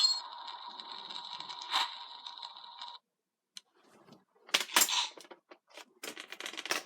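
An electronic sound effect from a Gokaiger Memorial Edition role-play toy's speaker: a steady hiss with high electronic tones that cuts off suddenly about three seconds in. After a short pause there is a run of sharp plastic clicks and knocks as the toy is handled and its buttons or trigger are worked.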